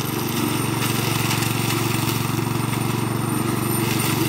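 A walk-behind brush cutter's 7 hp Chinese-made Asahi four-stroke petrol engine running steadily under load as its belt-driven blade chops through brush.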